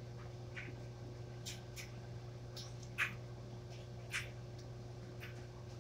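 Someone chewing soft bread: scattered faint smacks and clicks over a steady low hum, the loudest about three seconds in.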